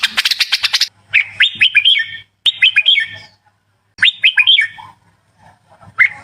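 Red-whiskered bulbul singing: three short, quick phrases of bright, bending whistled notes separated by brief pauses, with another phrase starting at the end. A fast run of sharp ticks fills the first second.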